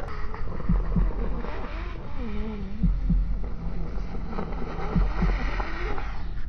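Sound-design score: paired low thumps like a slow heartbeat, about every two seconds, under a wavering, gliding drone and a hiss.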